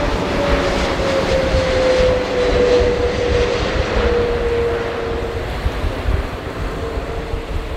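Twin CFM LEAP-1C turbofan engines of a COMAC C919 airliner passing overhead: a steady jet rumble with a droning tone that slowly falls in pitch as the aircraft moves away.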